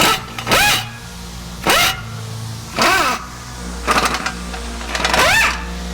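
Background music with a steady low hum, over five short whirring bursts about a second apart, each rising and then falling in pitch. The bursts are typical of an impact wrench being triggered on a seized lower control arm bolt.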